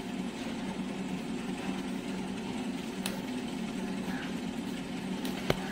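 A machine running with a steady hum, and a sharp snap near the end.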